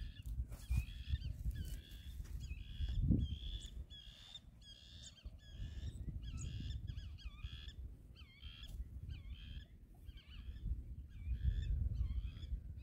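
Birds calling over and over in short, squeaky notes, a few calls a second without a break, over a low, uneven rumble that swells briefly about three seconds in and again near the end.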